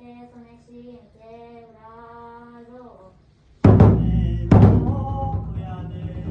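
A voice chants long held notes of a kagura melody. About three and a half seconds in, a large drum comes in with two hard strikes, about a second apart, and the drumming carries on loudly.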